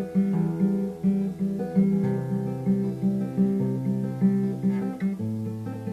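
Acoustic guitar played alone in a steady strummed rhythm, the bass note and chord changing about every one and a half seconds: an instrumental break between sung verses.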